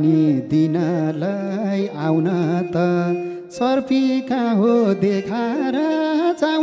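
Live Nepali dohori folk music: a steady melody line with sliding, ornamented notes and occasional sharp strokes.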